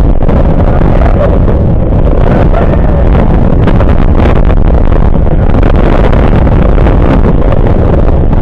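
Loud, steady rush of wind on the microphone and the rumble of a Vekoma roller coaster train running at speed through banked turns.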